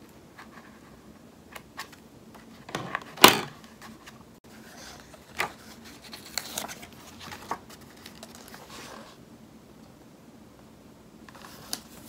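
Washi tape and paper being handled at a desk: small clicks, a louder sharp snip-like sound about three seconds in, then a few seconds of rustling as a piece of tape is peeled and pressed onto a planner page, with a short rustle near the end.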